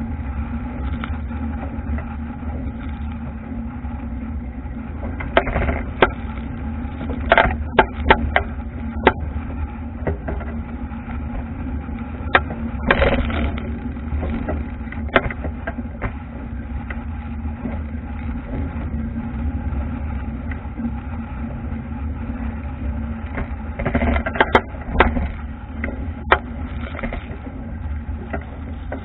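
Wind buffeting the camera and water rushing past a wooden racing dinghy's hull as it sails hard upwind through choppy waves, with scattered sharp knocks and splashes as the bow meets waves and spray hits the camera, in clusters several times.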